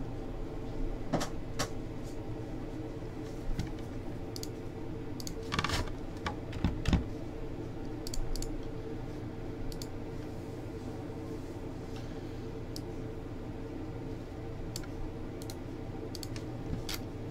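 Computer keyboard being typed on in scattered keystrokes and short runs with pauses between, over a steady low hum.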